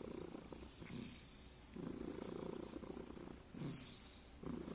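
Domestic cat purring up close: a faint, finely pulsing low rumble in stretches, easing off twice between breaths.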